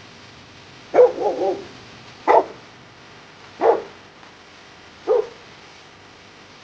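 A dog barking four times, about a second and a half apart; the first bark runs into a short wavering cry.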